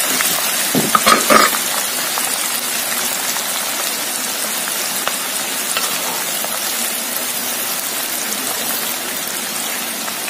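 Whole spices, dried red chillies and garlic sizzling steadily in hot sunflower oil in a wok as a wooden spatula stirs them, with a few short knocks about a second in. The spices are infusing the oil for chilli oil.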